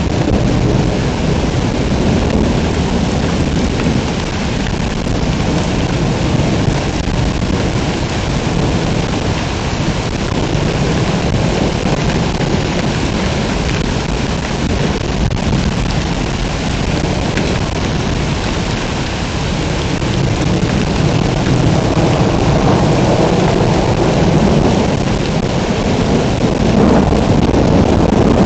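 Heavy rain pouring steadily in a thunderstorm, with a deep rumble of thunder underneath; it grows a little louder near the end.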